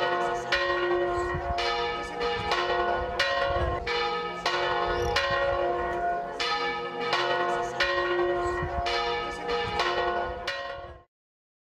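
Church bells pealing in a steady run of strokes, about two a second, each stroke ringing on over the next. The ringing cuts off suddenly near the end.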